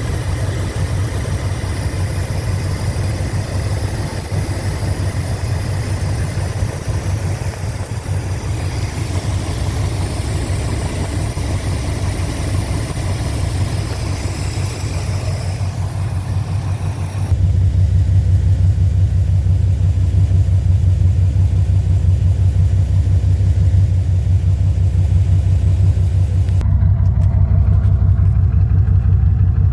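1987 Chrysler Fifth Avenue's 5.2-litre V8 idling steadily, with no lifter tick: it has new lifters and manifold gaskets. About two-thirds of the way through, the sound turns louder and deeper as the higher hiss drops away.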